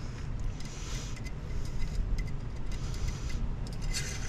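Light clicks and scrapes of a generator engine's oil dipstick being handled in and out of its tube, over a steady low rumble.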